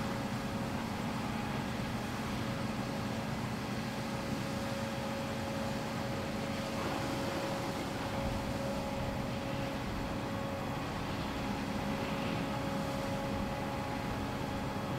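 Fire engine running steadily to drive its pump and feed a hose stream: an even mechanical drone with a couple of held low tones.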